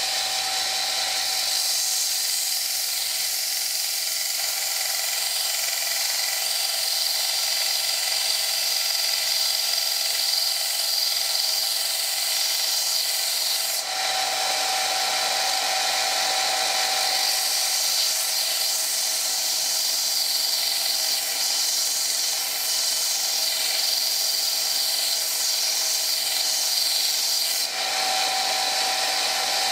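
Stationary belt sander running, with the ends of a thin steel rod held against the belt to grind them thinner: a continuous grinding hiss with a high whine. The sound changes briefly about halfway through and again near the end.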